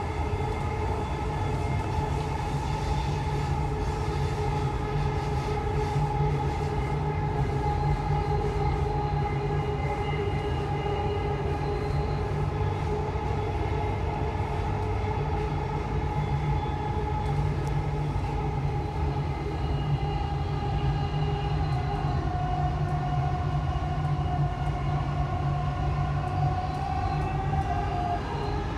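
Dubai Metro train running along its elevated track, heard from inside the carriage: a steady low rumble with a whine from the electric drive, which dips slightly about two-thirds of the way through and starts to rise near the end.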